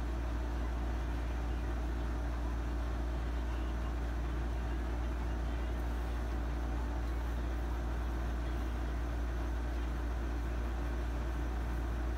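Steady low hum of room noise with no changes or distinct events.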